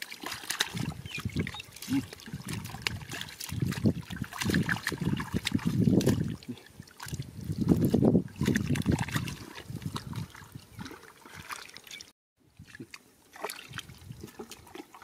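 Hands splashing and scooping through shallow muddy water, with water trickling along the channel. The sloshing comes in irregular heavy bursts, strongest around the middle, and the sound cuts out briefly about three-quarters of the way through.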